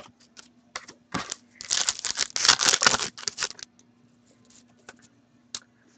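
Foil wrapper of a hockey card pack being torn open and crinkled: a run of rustling from about a second in until nearly four seconds, loudest in the middle, with a few faint ticks around it.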